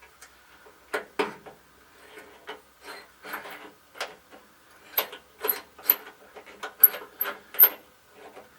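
Irregular clicks, taps and light rattles of small metal and plastic parts being handled and pushed into place behind a truck dashboard while a light is fitted back in; some clicks have a sharp high ping, the loudest about five to eight seconds in.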